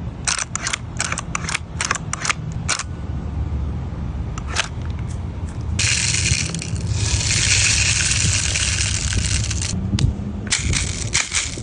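G&G airsoft gun firing: a quick string of single sharp shots, a sustained burst of about four seconds, then more rapid single shots near the end, over a steady low rumble.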